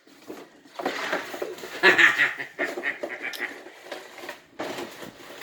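A golden retriever puppy and an older dog play-fighting: scuffling and short dog vocalisations in irregular bursts, the loudest about two seconds in.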